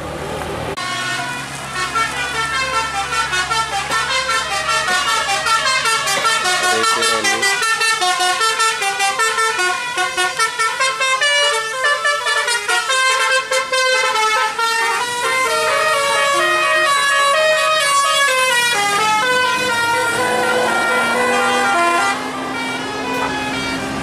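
Basuri telolet horns on tour buses play long, fast melodies of stepping notes, pulsing several times a second. A bus engine runs underneath, and near the end a lower engine note rises as a bus pulls round the bend.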